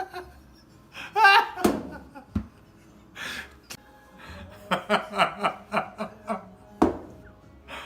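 A voice laughing in a run of short, rhythmic "ha" bursts, after a drawn-out vocal cry and a breathy gasp, with a few sharp knocks in between.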